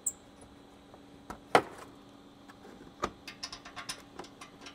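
Small metal clicks and knocks as nuts are started by hand onto the steel bumper's mounting bolts, with one louder knock about one and a half seconds in and a quick run of clicks near the end.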